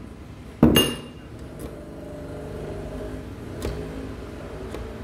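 One sharp metallic clank of a tool or part against metal about half a second in, ringing briefly; then a low steady hum with a couple of faint clicks.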